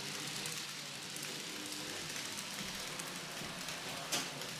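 Model train rolling along the track, a steady hissing run of wheel noise, with one sharp click about four seconds in.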